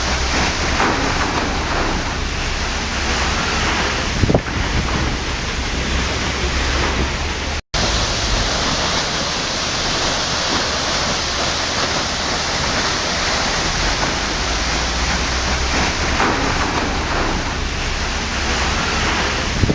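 Waterfall: a steady, loud rush of falling water, with a momentary cut to silence about eight seconds in.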